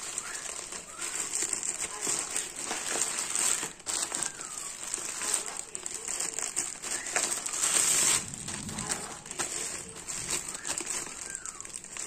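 Glossy plastic bird-food bag crinkling and crackling as hands work at its top, with a louder stretch of crinkling about two-thirds of the way through that stops suddenly.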